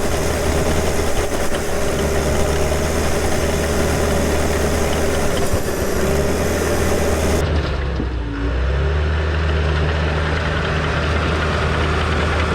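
John Deere 450H crawler dozer's diesel engine running steadily, with a short dip in the sound about two-thirds of the way through.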